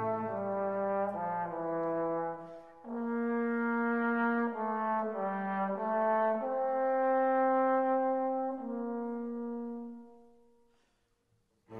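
Background music: a slow melody of long held notes that fades out near the end.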